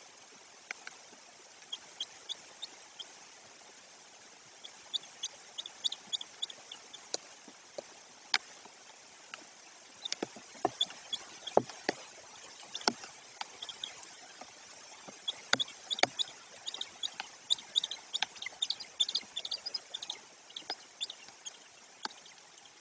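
Steady rain hiss with sharp drips and drops hitting close to the microphone, and bursts of short, high bird chirps, busiest about five seconds in and again in the second half.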